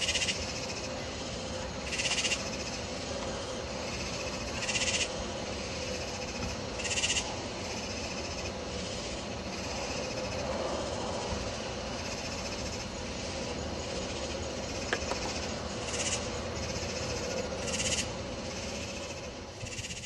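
Night insect chorus: a steady background of calling insects, with a louder, high buzzy call in short bursts every few seconds.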